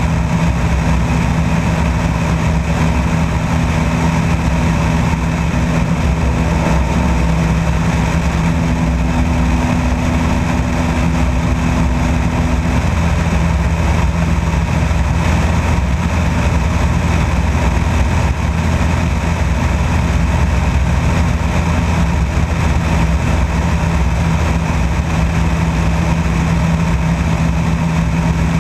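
Light aircraft's engine and propeller running at a steady cruise in flight, a constant droning hum with wind rush over the outside-mounted camera.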